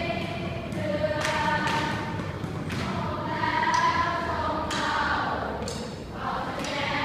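A large group of voices singing together in long held notes, with a few sharp thumps among them.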